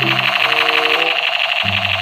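Battery-powered light-up toy machine gun sounding its electronic firing effect, a fast buzzy pulsing, over background music with held low notes.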